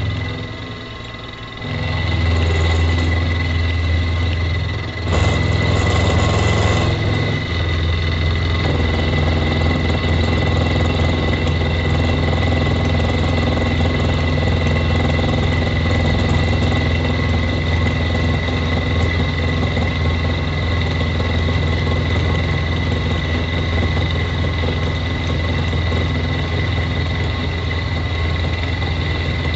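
Mini milling machine running, with the cutter taking material off a steel flat bar; a steady low drone with a steady high whine over it. The sound dips briefly near the start, comes back up about two seconds in, and is rougher and noisier for a couple of seconds around five to seven seconds in.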